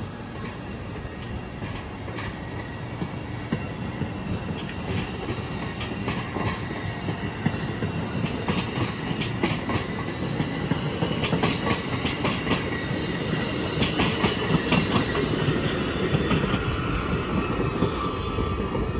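Amtrak passenger coaches and a baggage car rolling past at close range: a steady rumble of wheels on rail, with repeated sharp clicks as the wheels cross rail joints. It grows louder toward the end.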